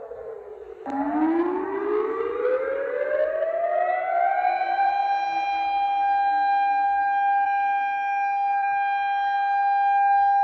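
Air-raid siren: a falling tone winds down, then about a second in the siren starts again low, winds up over a few seconds and holds a steady high wail.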